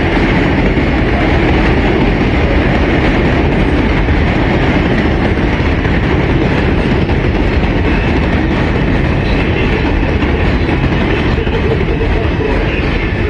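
New York City subway train running, a loud, steady rumble and rattle of wheels on the track.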